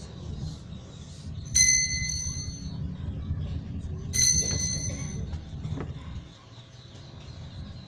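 Altar bell rung twice at the elevation of the chalice during the consecration. Each ring is sharp, with a clear tone that fades over about a second. The two rings come roughly two and a half seconds apart.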